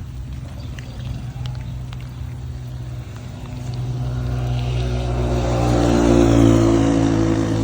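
A vehicle engine running with a steady low hum, growing louder through the second half together with a rising rush of hiss, peaking shortly before the end.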